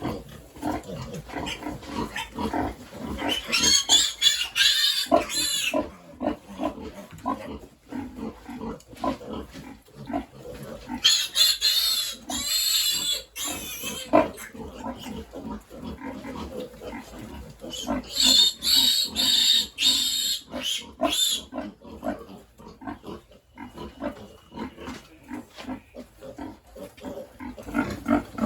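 Pigs grunting steadily, broken three times by bouts of loud, high-pitched squealing that last a few seconds each.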